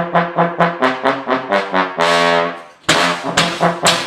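Brass instrument playing a tune: quick runs of short notes, then a longer held note that fades out about two seconds in, followed by another run of short notes.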